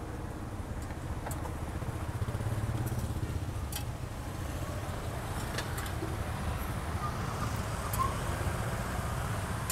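Street traffic, mostly motorbikes and cars, passing as a steady low rumble, with a few light metallic clicks of tongs against a round metal cake mould.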